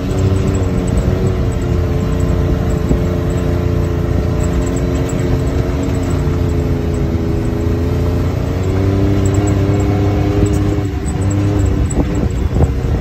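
Side-by-side UTV engine running steadily at trail speed. Its pitch sags a little midway and picks up again, with a few knocks from the machine jolting over the dirt trail near the end.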